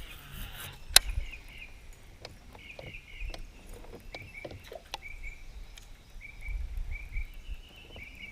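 Scattered sharp clicks and knocks of gear being handled in a fishing boat, one loud click about a second in, over a steady string of short high chirps repeating several times a second.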